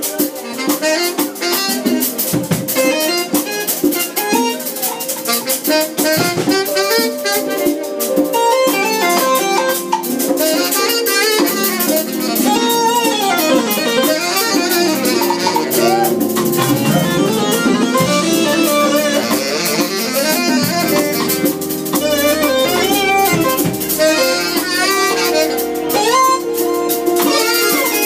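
A live band playing continuously, with a drum kit under a melodic lead line that bends up and down in pitch.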